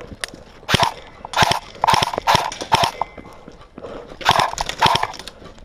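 Footsteps crunching on grass and dirt at a walking pace, about two a second, five steps then a short pause and two more. Faint scattered clicks of distant airsoft gunfire underneath.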